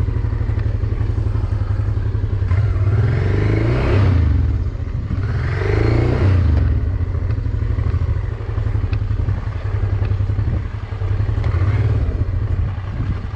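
Honda motorcycle engine running at low revs in gear as the bike is inched around on a steep slope, with two short rises in revs, one about three seconds in and one around six seconds, amid some clatter.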